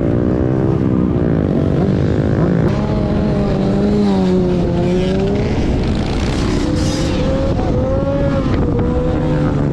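Several motor vehicle engines running and revving at once, their pitch rising and falling as they pass by.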